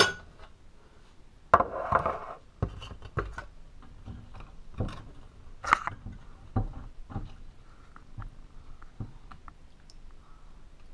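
A utensil knocking and scraping against an opened can of cat food and a bowl as the food is scooped out. There are about a dozen separate clinks and taps, with one longer scrape about two seconds in, growing sparser and fainter toward the end.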